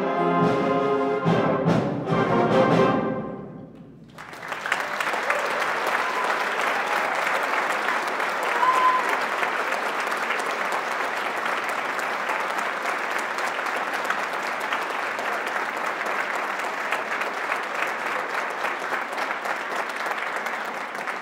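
A school concert band plays its final loud brass chords with percussion strikes, which ring out and die away within about four seconds. Audience applause then starts and continues steadily, with a brief high whistle about nine seconds in.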